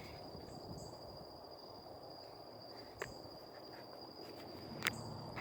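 Cricket giving one steady, unbroken high-pitched trill, with two sharp clicks about three seconds in and near the end.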